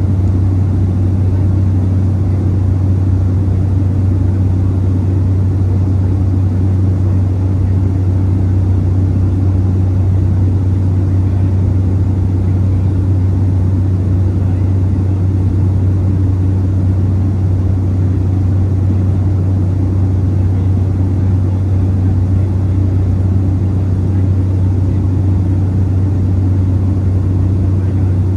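Cessna 208B Grand Caravan's single PT6A turboprop engine and propeller in cruise, heard inside the cabin as a steady low drone that does not change.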